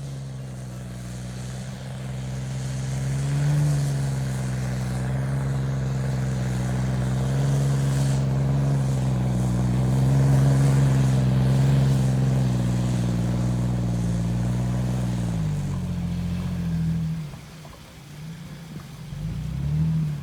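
Off-road 4x4's engine running at fairly steady revs, its pitch wavering slightly. The revs fall away around 15 to 17 seconds in, and a short rise in revs comes near the end.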